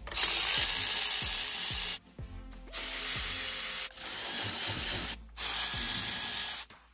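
Cordless electric ratchet running in four short bursts, the first about two seconds long and the others about a second each, backing out the bolts of a Borg Warner T18 transmission's rear output housing.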